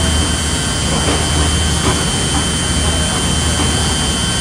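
A loud, steady mechanical rumble with a low hum under an even hiss, like heavy machinery running.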